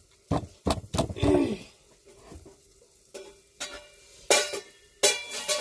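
Kitchen work: a few sharp knocks and clinks of utensils in the first second, then a couple of single knocks and two short bursts of sizzling and stirring in a hot frying pan near the end.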